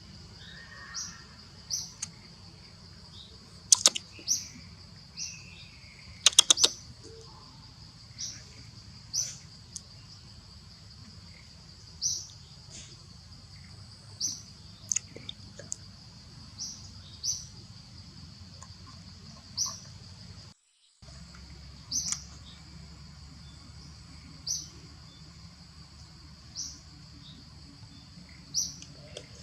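Short high chirps repeating every second or two over a steady high hiss, with a few sharp clicks about four seconds in and again a little after six seconds.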